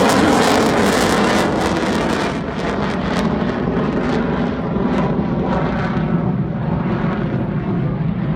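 Fixed-wing aircraft engine noise as a plane flies past. The loud hiss dies away after about two and a half seconds, leaving a steadier low drone.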